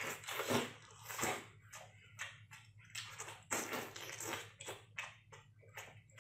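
Close-up mouth sounds of eating octopus: wet slurping as tentacles are sucked in, then chewing, a run of irregular smacks and clicks.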